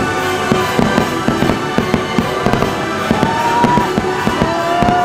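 Aerial fireworks bursting in a rapid series of sharp pops and bangs, over the fireworks show's music playing through loudspeakers.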